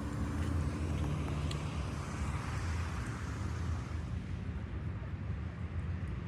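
Steady low engine rumble of a vehicle, with a soft hiss over it.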